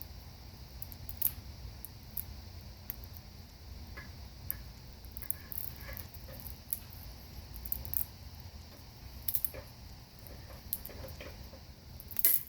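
Scattered light clicks, taps and scrapes from a wire-stripping hand tool and a length of electrical cable being handled and worked, with one sharper click near the end.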